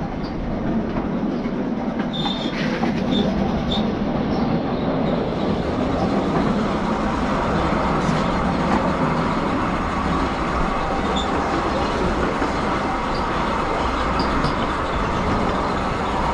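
Miniature railway train running along the track: a steady rumble of wheels on rail, with a few short high squeaks a couple of seconds in.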